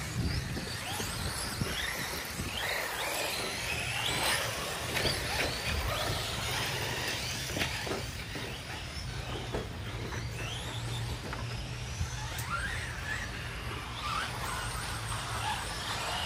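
Battery-powered electric RC cars running on a track: motor whines rise and fall over and over as they accelerate and brake, with scattered sharp knocks, over a steady low hum.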